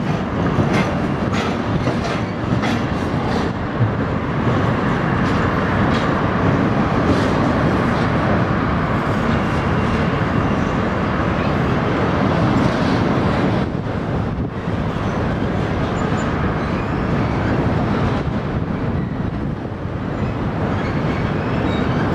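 Freight train of double-stacked containers rolling across a steel truss railway bridge: a steady rumble and rattle of wheels on rail, with a quick run of sharp clicks near the start.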